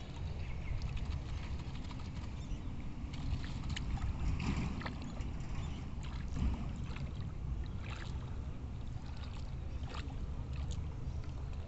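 Shallow water sloshing and splashing in uneven strokes as a person wades through a muddy pond, over a steady low rumble.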